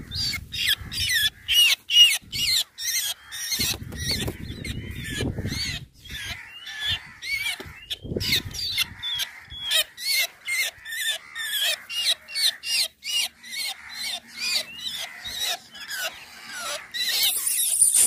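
A common myna, seized by a shikra, giving harsh squawking distress calls in a rapid unbroken series, about three a second. Bursts of low rustling come in about four to five seconds in.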